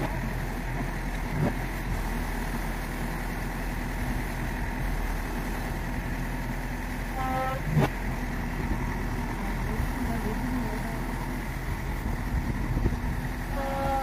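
JCB 3DX backhoe loader's diesel engine running steadily as the backhoe arm works. A sharp knock comes about eight seconds in, and brief honk-like tones sound just before it and again near the end.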